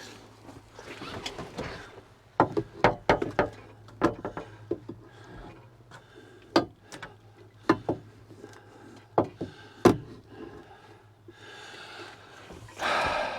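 Irregular sharp knocks and clicks of a metal mounting bar being handled and tried against its bracket on a tractor, about a dozen taps spread out, over a steady low hum.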